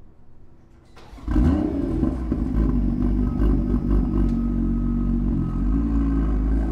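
BMW M2's 3.0-litre turbocharged inline-six starting up about a second in, flaring loudly for a moment, then settling into an even idle.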